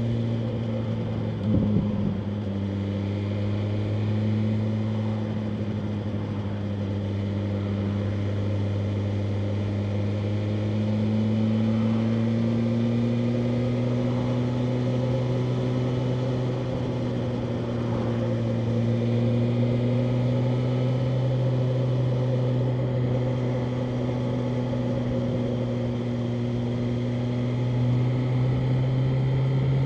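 BMW M1000R Competition's inline four-cylinder engine running steadily at cruising revs. About one and a half seconds in there is a brief knock, after which the engine note drops a little. The note climbs gradually near the end as the bike speeds up.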